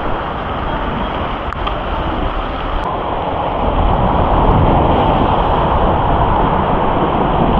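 Heavy rain pouring in a thunderstorm, a steady dense hiss that grows louder about four seconds in.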